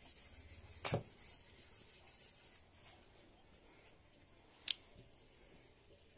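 Faint handling of shop packets on a table: plastic snack and tea wrappers and a paper bag rubbing and crinkling, with two short sharp crackles, one about a second in and another some four seconds later.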